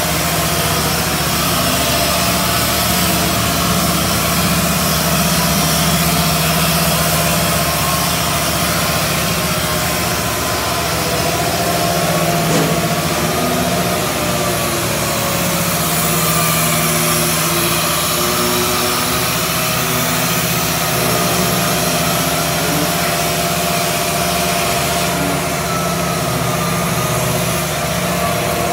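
An engine running steadily at idle, with a hiss over it.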